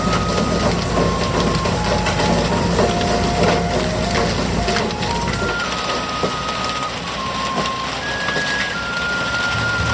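A simple background melody of single held notes over a busy clatter of hard knocks and crunching, with a low machine rumble that stops about halfway through.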